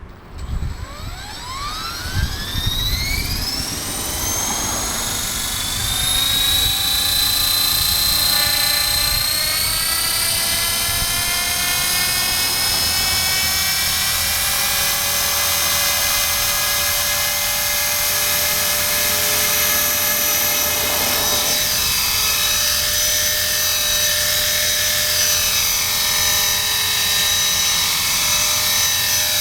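Blade 400 electric RC helicopter spooling up: a high whine from the motor and rotor head rises steeply in pitch over the first five or six seconds, then holds a steady pitch.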